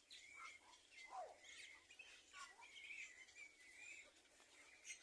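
Birds chirping and calling faintly: a string of short chirps, a falling whistle about a second in, and a wavering trill through the middle.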